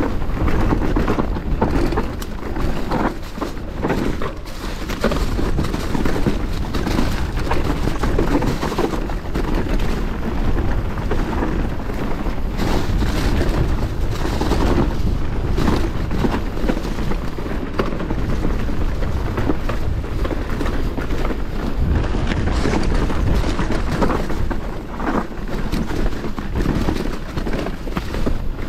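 Commencal Meta SX V4 enduro mountain bike descending a dirt trail strewn with dry leaves: a continuous rumble of tyres on the ground with frequent knocks and rattles from the bike over bumps, and wind buffeting the microphone.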